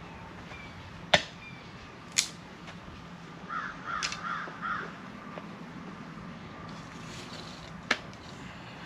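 Wood being chopped: three sharp chops, about a second in, a second after that, and near the end. Between them a bird calls harshly a few times.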